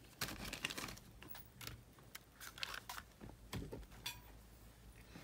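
Faint, scattered small clicks and taps from hands handling the opened Sony WM-GX822 cassette Walkman's chassis and small parts.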